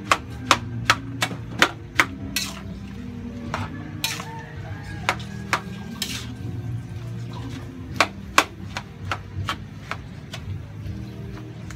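Metal spatula clacking and scraping against a large metal wok as rice noodles are stirred and tossed. The sharp knocks come in irregular clusters, busiest in the first two seconds and again about eight seconds in.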